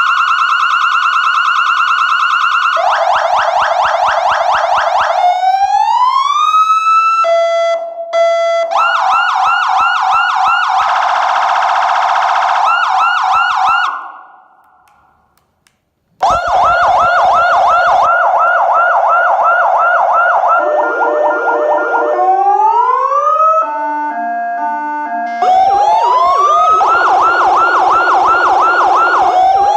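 Electronic siren of a 400 W wireless motorcycle emergency horn and siren unit, cycling through its tones: fast repeating yelps, slow rising wails and stepped beeping tones. It falls silent for about two seconds midway, then starts up again.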